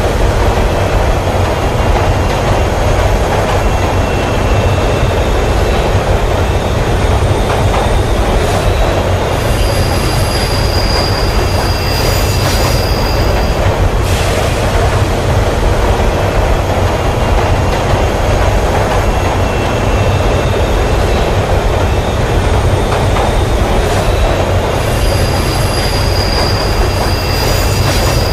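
Subway train running through a tunnel: a steady loud rumble and hiss of wheels on rail. A thin high wheel squeal comes in twice, for a few seconds about ten seconds in and again near the end.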